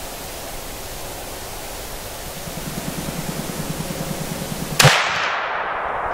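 A single shotgun shot about five seconds in, a sharp crack with a long echo fading away. Before it, over a steady hiss, a fast low pulsing beat starts about two seconds in and carries on after the shot.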